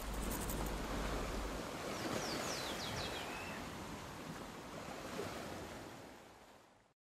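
Sea surf washing on a beach, a steady noisy rush, with a few short, high, falling chirps about two seconds in; it fades out near the end.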